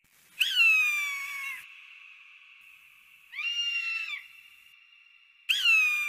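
A raptor screaming three times: harsh, piercing screams that start high and slide downward, the first about half a second in and lasting over a second, a shorter one about three seconds in, and a third starting near the end.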